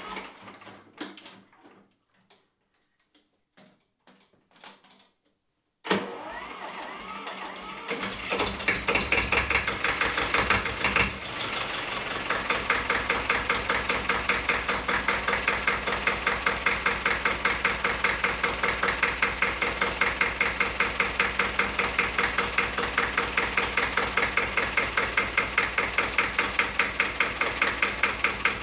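An engine starting about six seconds in and then idling with a steady, even beat.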